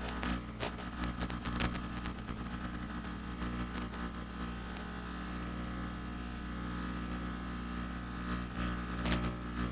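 Hexcopter's electric motors and propellers humming steadily in flight, a blend of several fixed low tones.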